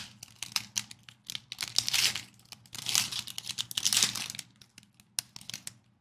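Foil wrapper of a trading-card pack being torn open and crinkled by hand, in uneven bursts of sharp crackles and rustles, heaviest in the middle and dying away near the end.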